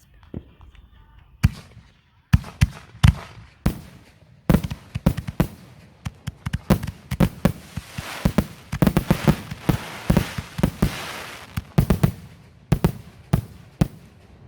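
Fireworks going off in a rapid string of sharp bangs that build into dense crackling in the middle, then a few more separate bangs near the end.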